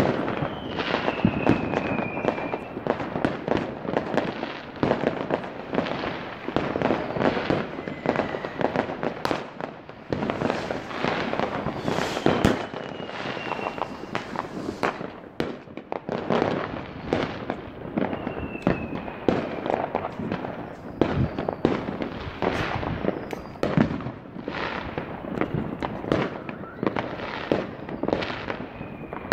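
Fireworks set off at many nearby houses: a continuous barrage of overlapping bangs and crackles, with a short falling whistle every few seconds.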